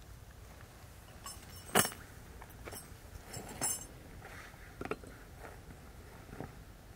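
A few light knocks and clinks of small hard objects being handled, the sharpest about two seconds in and a brief metallic jingle near four seconds.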